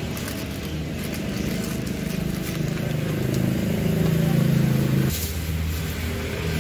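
A motor vehicle engine runs close by with a steady low hum. It grows louder for a second or two, then drops back suddenly about five seconds in.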